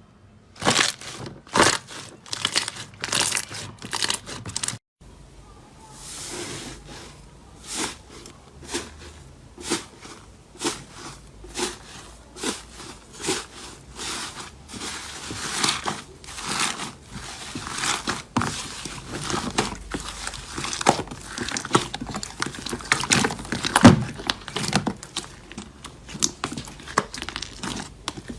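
Hands squeezing and poking slime, making a dense run of short crackling, popping and squishing sounds. The sound drops out briefly about five seconds in, then goes on.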